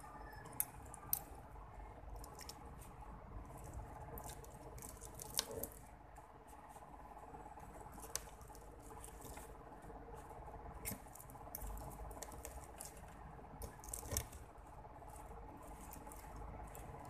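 Plastic fork and metal spoon scraping and tapping in a paperboard food tray while gathering spaghetti, giving scattered sharp clicks over a faint steady hum.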